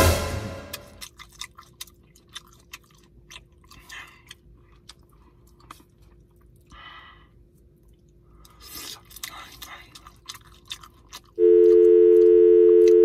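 A person eating curry chicken close to the microphone: a loud mouth sound at the first spoonful, then chewing with wet clicks and smacks. About eleven seconds in, a loud, steady electronic tone like a telephone dial tone starts suddenly and holds.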